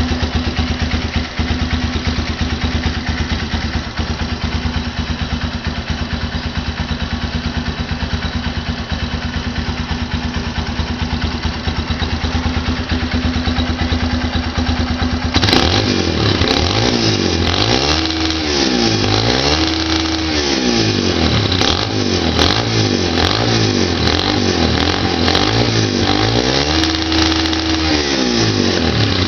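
Honda CG 150 Sport single-cylinder motorcycle engine idling steadily, then, about halfway through, revved up and down over and over, roughly every two seconds, sometimes held briefly at high revs. Sharp crackles and pops come through on the revs from its exhaust popper (estralador).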